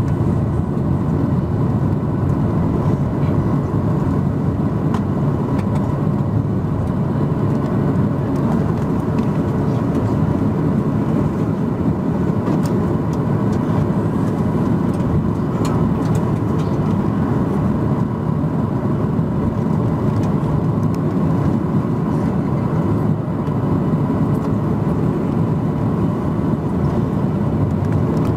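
Steady cabin rumble inside a Boeing 737-800 rolling along the runway after landing: its CFM56-7B engines and its wheels on the runway surface, with faint clicks and rattles over it.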